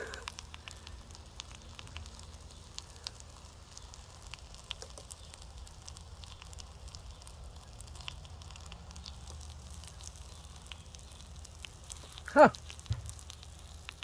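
Propane melting furnace running with a steady low burner rumble and scattered crackling around the white-hot crucible of steel. Near the end comes one short, loud sound.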